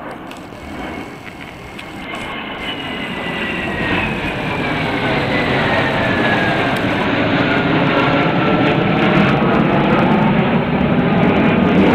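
Jet engines of a formation of four fighter jets flying past overhead, a rushing rumble that grows louder throughout, with a high whine that falls steadily in pitch as they go by.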